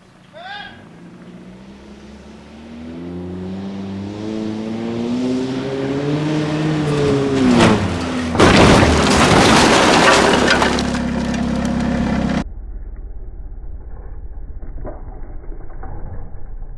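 Truck engine revving up as it accelerates, then a loud crash with cracking and breaking lasting about four seconds as it hits the doors, cutting off suddenly.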